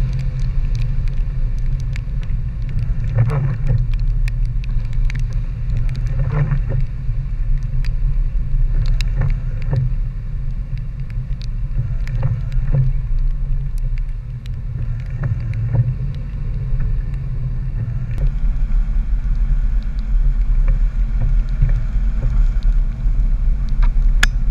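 Power Wagon pickup truck driving up a slushy, snowy trail, heard from a hood-mounted camera: a steady low rumble of engine and tyres, with many scattered sharp ticks throughout.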